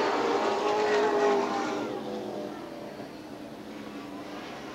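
A pack of super late model stock cars racing under power, their V8 engines loud at first and fading about two seconds in as the field draws away down the track.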